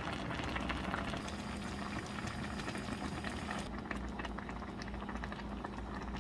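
A pot of spicy Korean army stew (budae jjigae) boiling hard, the red broth bubbling with a dense, steady crackle of small pops.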